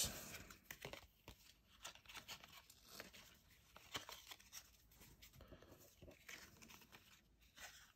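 Faint, scattered clicks and rustles of trading cards being flipped through in the hands and laid down on a wooden table.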